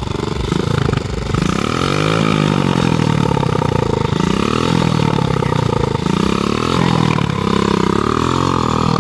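200cc two-stroke engine of a homemade motorized bicycle, revving up and falling back about four times in a row.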